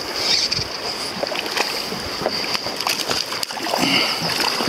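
Shallow river current rushing over rocks close by, with small irregular splashes at the surface.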